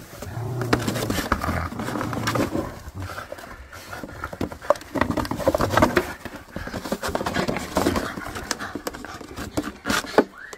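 A pomsky biting and tugging at an empty plastic juice jug, the plastic giving irregular crackles and clicks throughout.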